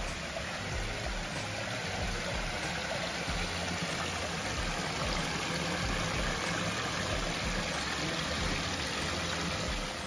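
Water splashing and trickling over rocks in small cascades into a garden pond, a steady rush that grows a little louder midway.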